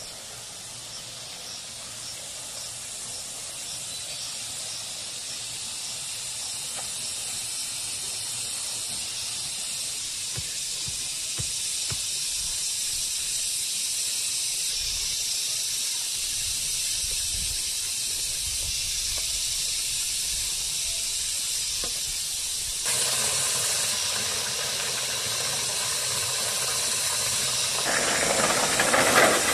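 A steady high-pitched insect chorus, a hiss that slowly grows louder, with abrupt changes in its character about 23 seconds and 28 seconds in.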